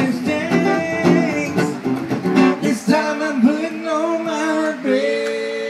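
Live acoustic music: male vocals over strummed acoustic guitars, amplified through PA speakers. Near the end the song closes on one long held note.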